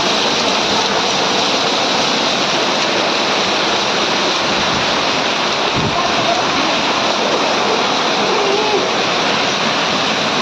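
A heavy hail shower with rain: hailstones and rain falling hard, a steady, dense rushing hiss with no let-up.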